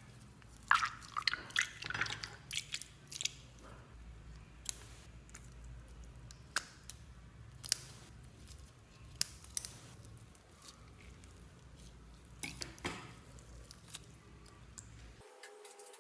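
Slime being squeezed, stretched and mixed by hand, giving irregular wet squishes, clicks and small pops, busiest in the first few seconds and again near the end.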